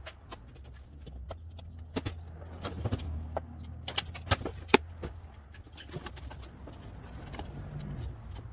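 Scattered sharp clicks and knocks of plastic push-in trim buttons being pried out and the trunk lining being handled, over a steady low hum.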